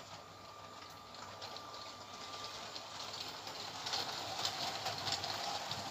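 Lego toy train running on its plastic track: a steady rattle of small clicks that gets louder about four seconds in.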